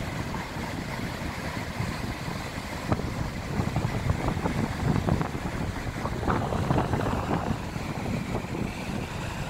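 Ocean surf breaking on a sandy beach: a steady rumble of waves with wind buffeting the microphone, swelling into a louder, crackling stretch in the middle as breakers crash.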